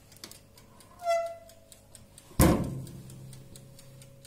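Kirin electric toaster oven: a short metallic scrape as the baking pan goes onto the wire rack, then a loud clunk of the door shutting about two and a half seconds in. A low hum follows the clunk, and the oven's timer ticks rapidly.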